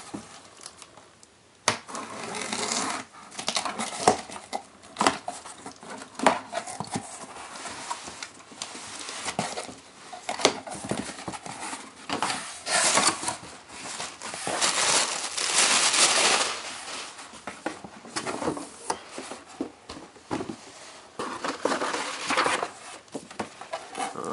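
A cardboard shipping box being opened and unpacked by hand: scattered knocks and clicks of cardboard, with stretches of paper rustling and crinkling, longest about halfway through.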